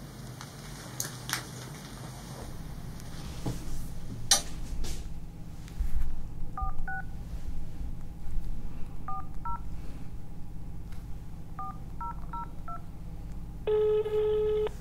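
Touch-tone phone being dialed: short keypad beeps in three quick groups, about ten in all, then a single ring tone lasting about a second near the end as the call goes through. A few sharp clicks come before the dialing, over a low steady hum.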